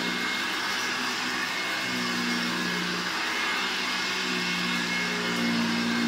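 1958 Hoover Junior 1334 upright vacuum cleaner running over carpet: a steady rushing whir, with a low hum that swells and fades every couple of seconds.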